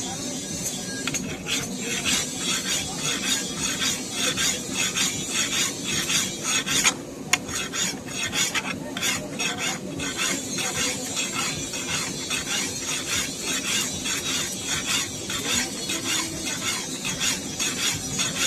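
A steel knife blade being sharpened by hand: rhythmic scraping strokes of metal, about two a second.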